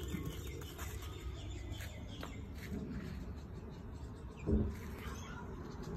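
Small birds chirping now and then over a steady low rumble, with one low thump about two thirds of the way through.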